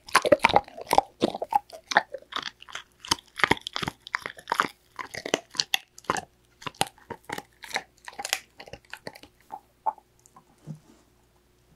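Labrador retriever crunching and chewing a dried shark-cartilage treat close to the microphone: a dense run of sharp cracks that thins out to a few scattered crunches in the last couple of seconds.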